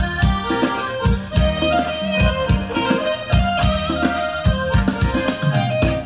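Live band playing upbeat Thai ramwong dance music: a steady drum beat under a sustained melody line.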